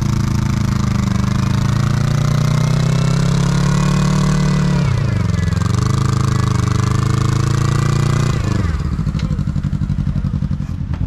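Side-by-side UTV engine held at raised revs while hauling another side-by-side through deep snow on a tow line. The pitch sags briefly about five seconds in, then drops to a pulsing idle near the end.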